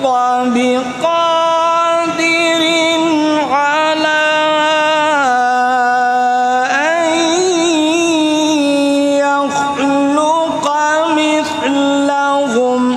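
A man's voice reciting the Quran in melodic tajweed style into a microphone. He holds long, ornamented notes through one drawn-out phrase and breaks off just before the end.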